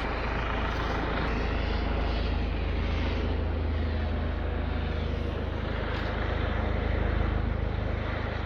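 Helicopter circling overhead: a steady drone of rotor and engine noise that swells a little about seven seconds in.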